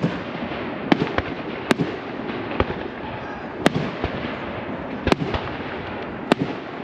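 Aerial fireworks bursting: sharp bangs at uneven intervals, about eight in a few seconds, over a steady background hiss.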